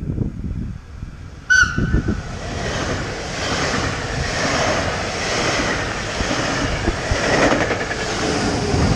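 BLS electric push-pull passenger train passing close by at speed: a brief horn blast about a second and a half in, then steady rushing wheel and rail noise as the coaches and the locomotive go by.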